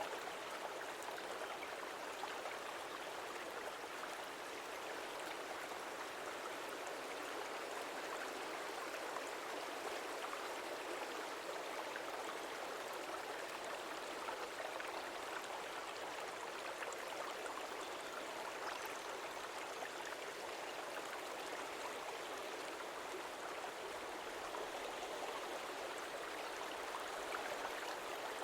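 A stream flowing steadily: an even, unbroken rushing of water without any deep rumble.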